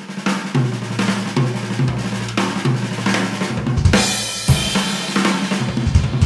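Animal Custom Drums acoustic kit being played: snare, toms and bass drum in a steady pattern with cymbals, and a cymbal crash about four seconds in.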